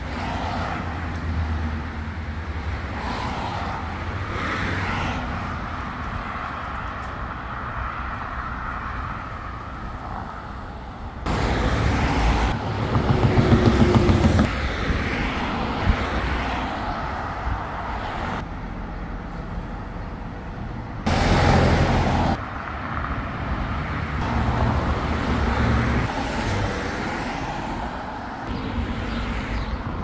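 Road traffic on a city boulevard, with cars passing. A louder stretch comes about eleven seconds in, carrying a rising engine note, and a shorter loud burst about twenty-one seconds in.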